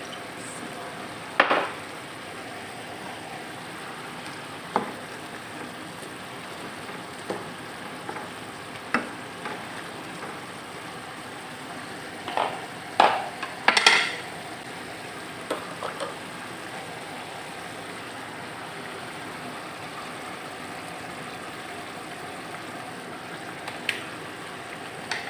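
Food sizzling in a frying pan as it is stirred, with a steady hiss and now and then the sharp clank of a metal utensil against the pan, several in quick succession about halfway through.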